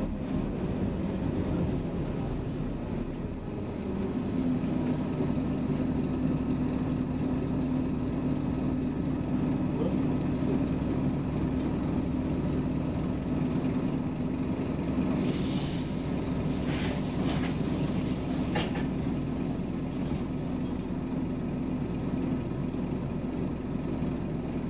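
Scania Omnicity bus's diesel engine running with a steady drone that firms up about four seconds in. A short hiss of released air from the air brakes comes about two-thirds of the way through, followed by a few clicks.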